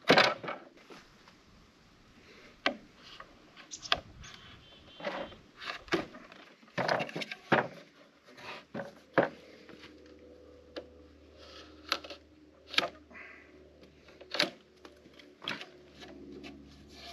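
Irregular knocks and scrapes of a rough-sawn 2x4 being handled, shifted and set down on a wooden cable spool.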